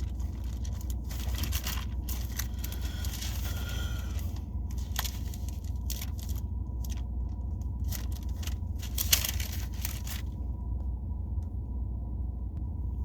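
Bible pages being turned and rustled by hand, in short irregular rustles with a quieter pause near the end, over a steady low hum.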